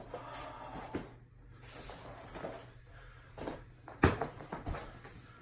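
Bare feet shuffling and judo gi cloth rustling on a foam mat as a throw is drilled, with a few soft thumps and one loud thump on the mat about four seconds in.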